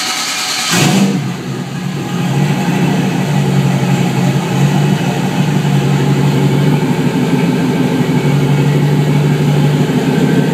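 GM LS-series V8 engine cranking on the starter, catching about a second in and settling into a steady idle near 700 rpm. It is running on a MicroSquirt 2 engine controller that reads the stock crank sensor and fires the stock coils in waste-spark mode, after syncing and setting 10 degrees of timing.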